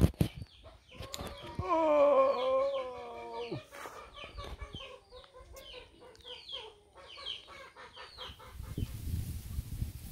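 A rooster crows once, a long call about a second and a half in, followed by a run of quick, high, falling bird chirps. At the start there are a couple of sharp knocks, and near the end a low rumbling noise takes over.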